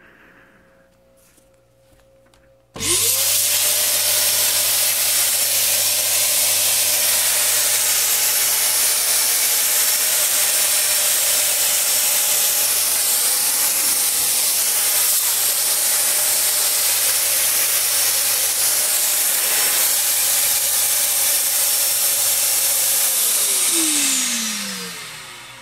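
Vectorfog C100 ULV cold fogger switching on about three seconds in, its blower motor running loud and steady with a rush of air and a constant whine as it sprays fog. Near the end it is switched off and the whine falls in pitch as the motor spins down.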